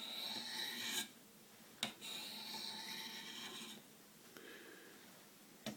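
Knife edge drawn along a Spyderco Sharpmaker ceramic stone: a hissing scrape in long strokes, two clear ones of one to two seconds and a fainter third, with a short click as the blade is set back on the stone before the second and at the end.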